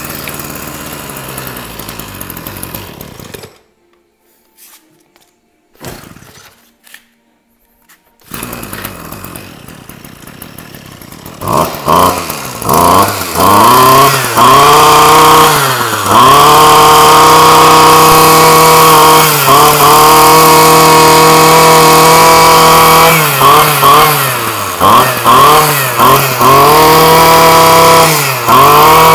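Small 23cc two-stroke engine of a Ryobi EKK2370 brush cutter catching about eleven seconds in and then running loud and high, its pitch dipping and rising again several times as the throttle is eased and reopened. It starts easily and runs cleanly, in good running condition.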